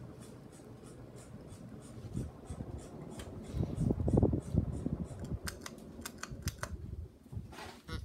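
Hunter Reverse Aire ceiling fan running, heard close up: an uneven low rumble that swells about halfway through, followed by a quick run of light clicks near the end.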